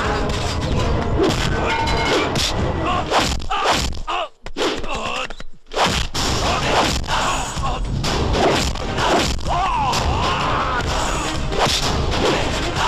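Dubbed movie fight soundtrack: repeated punch and kick impact effects with whooshes, cutting out for a moment twice, about four and about five and a half seconds in.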